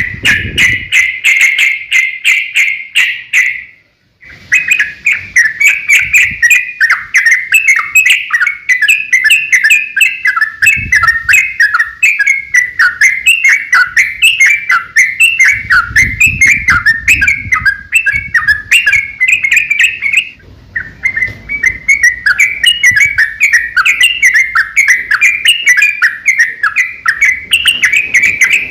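Sooty-headed bulbul (trucuk) singing long, rapid runs of chirping notes, the fast 'ropel' song. It breaks off briefly about four seconds in, then carries on almost without pause.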